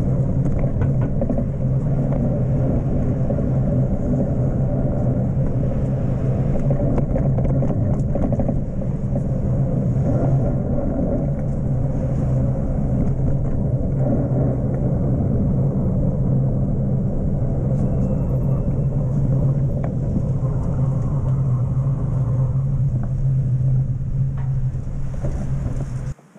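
Steady rumble of wind and road noise on a bicycle rider's camera microphone while riding, which cuts off suddenly near the end.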